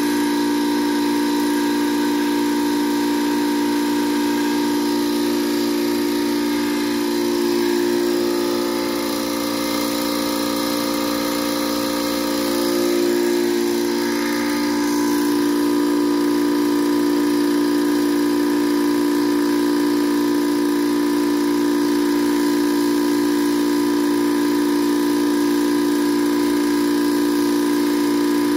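Small electric air compressor running steadily with an even, pitched hum while compressing biogas from an inner tube into a propane tank.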